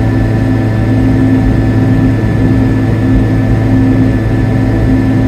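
Piaggio Ape 50's small two-stroke engine running steadily at cruising speed, heard from inside the cab: a constant low drone with a higher hum that comes and goes every second or so.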